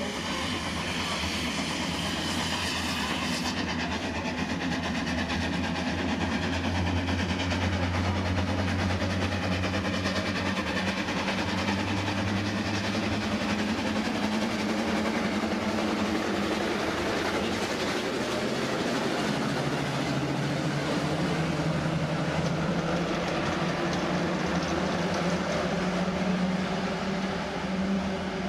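A steam bus's engine running as the bus drives past and climbs the hill, a steady mechanical train-like clatter, with other traffic.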